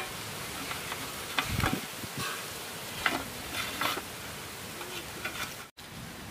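Knife scraping and cutting through salted, dried queen fish on a metal plate: irregular dry, scratchy scrapes and small clicks over a steady hiss, with a momentary dropout near the end.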